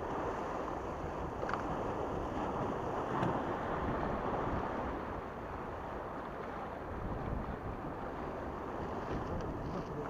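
Small sea waves washing and splashing against the rocks of a breakwater, a steady rushing with wind on the microphone.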